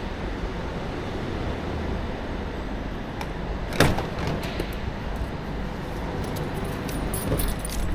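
A car door shut with a single solid thud about four seconds in, over a steady low rumble; near the end, keys start jingling.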